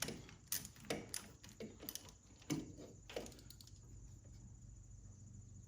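Irregular sharp clicks and knocks from a wrench working a starter mounting bolt tight, dying away about three seconds in.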